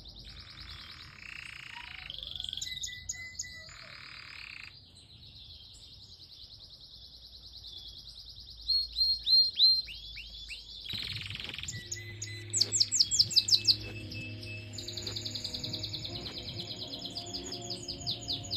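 Domestic canary singing a long, varied song made of fast rolling trills. About nine seconds in comes a run of quick descending whistles, then a few seconds later a burst of loud, rapid chopped notes.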